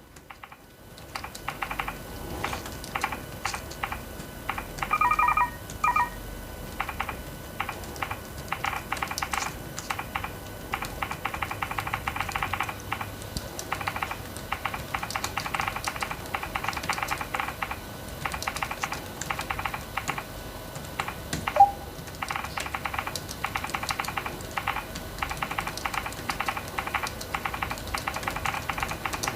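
Typing on the ONEXPLAYER's thin plastic detachable keyboard: runs of quick, light key clicks with short pauses between them. A brief pitched sound comes about five seconds in, and one louder click about two-thirds of the way through.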